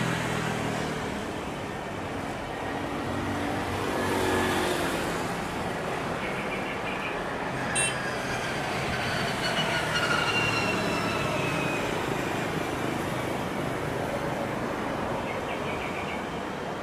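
Boeing 737-800's CFM56-7B jet engines running as the airliner rolls down the runway on its take-off run: steady jet noise with a whine that falls in pitch over the middle seconds. A brief click about eight seconds in.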